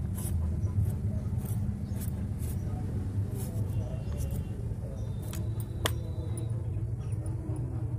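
Serrated vegetable peeler scraping strips of skin off a ripe papaya, a short rasp with each stroke roughly every half second, over a steady low rumble. One sharp click comes about two-thirds of the way through.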